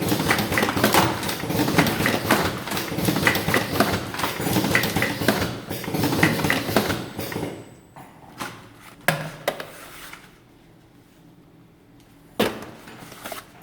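Automatic cartoning machine running, a dense rapid clatter of clicks and knocks from its mechanism. About seven and a half seconds in the clatter stops, leaving a low background with a few separate sharp clicks, the loudest near the end.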